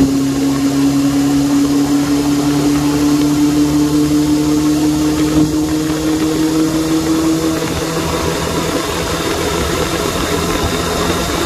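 Suzuki Bandit 600's inline-four engine running at a steady pitch that creeps slowly upward. About two-thirds of the way in its main tone drops away, leaving a lower hum under a steady rushing noise.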